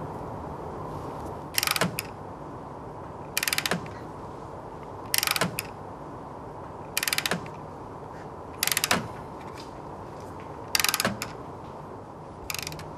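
Hand ratchet clicking in a short rapid burst about every two seconds, seven times, as it is worked back and forth to turn the threaded spindle of an oil-seal mounting tool that presses an oil seal into the engine housing. A steady faint hum of background noise runs underneath.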